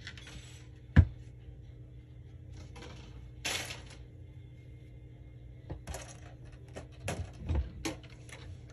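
Small handling sounds of metal card tins and their packaging: a sharp tap about a second in, a brief rustling scrape about three and a half seconds in, then a few light clicks and knocks near the end.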